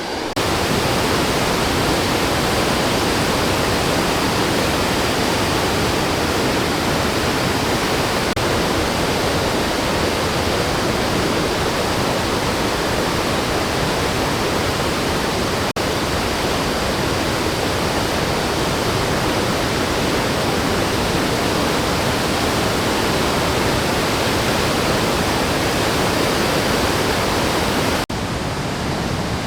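Murchison Falls, where the River Nile is forced through a narrow gorge, making a steady, loud rush of falling water. The sound breaks off for an instant about halfway through and drops a little near the end.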